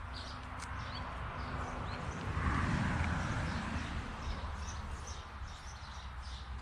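Outdoor creekside ambience: scattered faint bird chirps over a low steady rumble that swells about two and a half seconds in.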